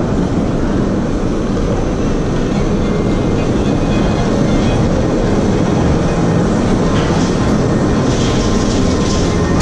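Bobsled roller coaster train climbing its chain lift hill: a steady, loud rumbling clatter of the lift chain and the cars, with a few sharper clanks near the end.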